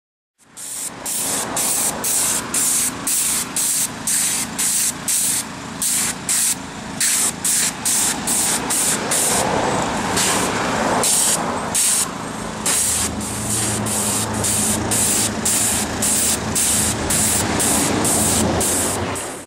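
Cleaning chemical sprayed onto a stone headstone in rapid hissing squirts, about two a second. A steady low engine-like hum runs underneath and grows louder about two-thirds of the way through.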